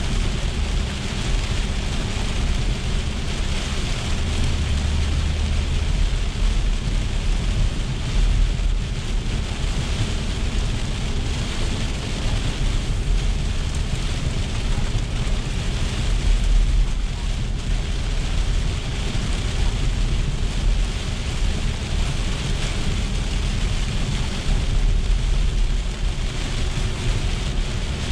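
Heavy rain drumming on a car's roof and windshield, heard from inside the moving car, over a steady rumble of tyres on the wet road.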